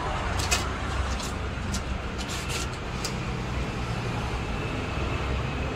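Thin plastic packet crinkling with a few sharp crackles during the first three seconds as a new fork oil seal is unwrapped by hand, over a steady low background rumble.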